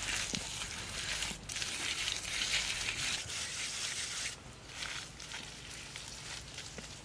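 Bare hands pressing and smearing wet mud-and-straw plaster onto a wall: a rough, crackling rubbing noise that grows quieter after about four seconds.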